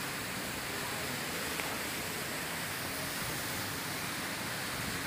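Garden fountains running: a steady rush of splashing water.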